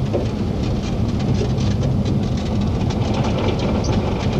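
Strong storm wind buffeting a camcorder microphone: a steady, loud low rumble with a dense crackle over it.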